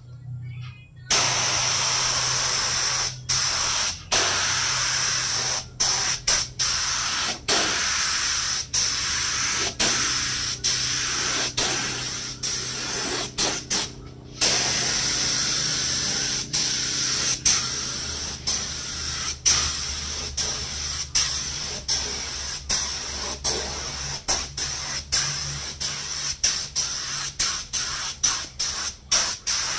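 Air spray gun spraying a clear nano coating onto a headlight lens: a loud hiss that starts about a second in and cuts off briefly many times as the trigger is let off and pressed again, with a longer pause about halfway. A faint low hum runs underneath.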